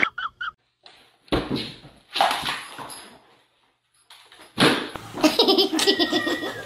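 Two sudden loud sounds, then a person laughing hard through the second half.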